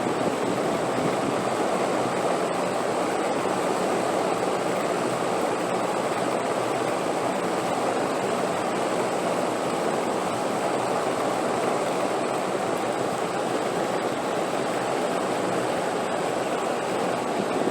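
Steady wind noise, an even rushing with no gusts or breaks.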